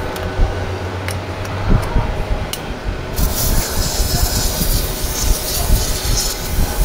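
A few light metallic clicks of tool work, then, about halfway through, a steady hiss of aerosol brake cleaner being sprayed onto the brake caliper.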